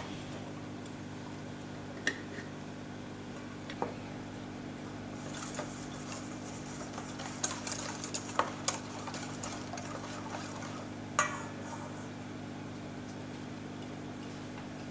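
A utensil mixing a wet mustard-and-spice marinade in a bowl, with scattered clinks against the bowl, busiest from about five to nine seconds in. A steady low hum sits underneath.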